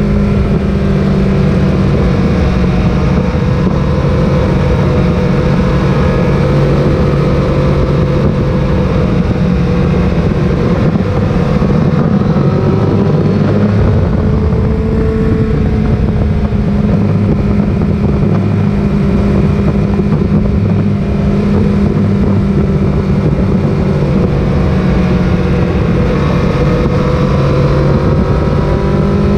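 Sport motorcycle engine running steadily at road speed while riding, its pitch drifting slightly up and down with the throttle.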